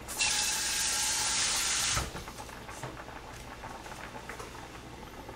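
Kitchen tap running in a steady stream for about two seconds, then shut off abruptly, most likely filling a container with water for soaking; a faint background remains afterwards.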